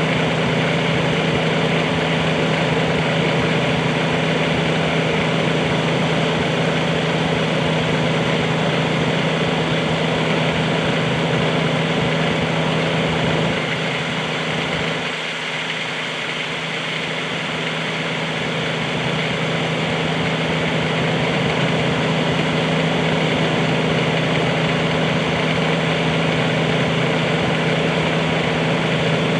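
Bobcat 320 mini excavator's engine idling steadily, its low rumble dropping off briefly about halfway through.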